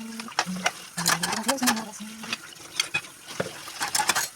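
A utensil stirring food in a pan, with many sharp clicks and scrapes against the pan over a light frying sizzle.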